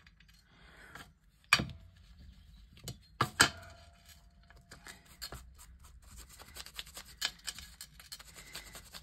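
Ink blending tool dabbed on an ink pad and worked over paper on a glass craft mat: light taps and rubbing, with two louder knocks in the first half and a run of small ticks after.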